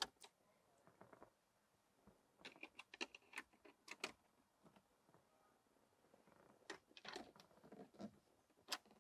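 Faint, irregular clicks and light knocks of a Citroën DS instrument panel being handled and fitted back together. They come in small clusters with pauses between, and there is a sharper click near the end.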